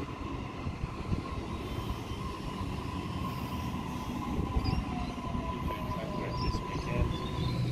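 Sydney Trains Waratah double-deck electric train running into the platform and slowing: a steady rumble of wheels and carriages with a steady high whine, and a second whine falling in pitch during the second half as the train brakes.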